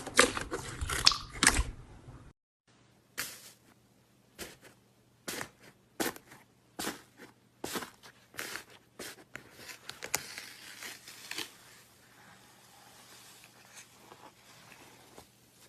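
Slime being squeezed and pressed by hand: dense crackling for the first two seconds, then, after a brief break, separate sharp snaps and pops about once or twice a second, fading to softer crinkling near the end.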